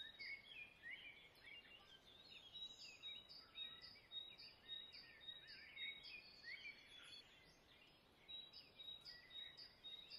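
Faint bird chirping: a short high note repeated about twice a second, with other sliding chirps around it, dropping out briefly about seven seconds in.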